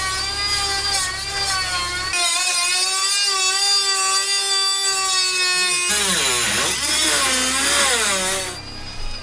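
Hand-held rotary tool with a cutoff wheel grinding through old steel engine control cables, a steady high whine with sparks flying. From about six seconds in the pitch dips and wavers as the wheel loads up in the cut.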